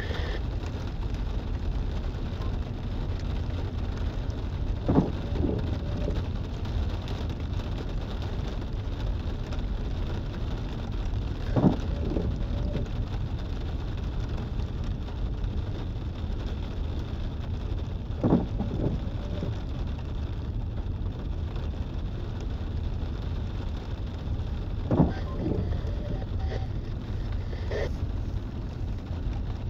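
Low, steady rumble of a long freight train of loaded trash container cars rolling past, heard from inside a car. About every six and a half seconds the windshield wipers make a sweep with a short knock and a brief squeak.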